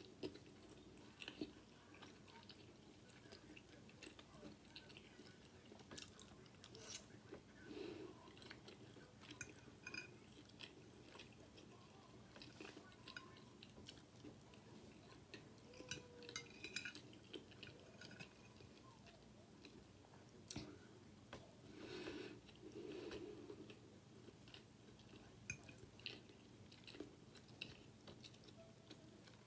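Faint chewing of soft food (seasoned rice and cheesy broccoli) eaten off a fork, with scattered small mouth clicks throughout.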